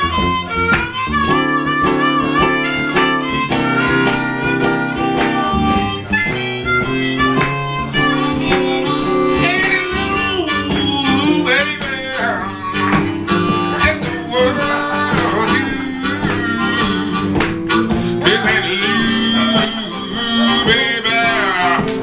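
Blues harmonica solo, held and bending notes, over a strummed acoustic guitar.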